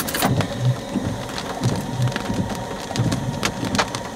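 Hail falling with rain, hailstones striking the chase vehicle in sharp, irregular clicks and knocks.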